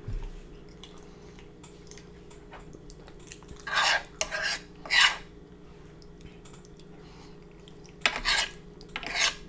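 Fingers scraping and scooping saucy noodles across the surface of a black griddle tray, in short scrapes: about three around four to five seconds in and two more near the end.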